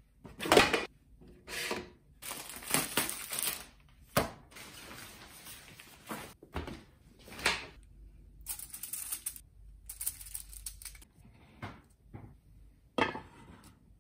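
Handling sounds: a bamboo folding table clacking and knocking as its legs are unfolded and set down, then aluminium foil rustling and crinkling as it comes off a tray, with a few sharp knocks in between.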